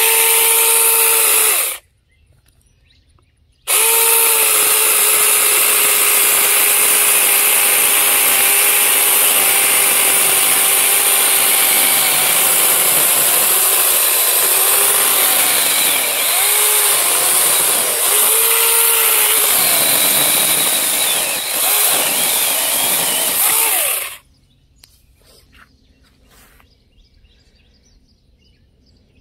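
A 24 V battery-powered mini chainsaw whines briefly, stops, then runs for about twenty seconds cutting through a small dead conifer trunk. Its pitch sags several times in the second half as the chain bites under load, and it cuts off suddenly.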